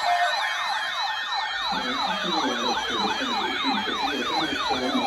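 Electronic yelp siren wailing quickly up and down, about three sweeps a second, sounding as an attention signal ahead of a severe thunderstorm watch alert. A lower, choppy pulsing sound joins it about two seconds in.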